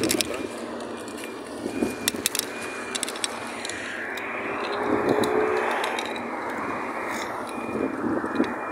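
Outdoor road noise with a vehicle passing, swelling and fading around the middle. A few clicks and scrapes come in the first seconds.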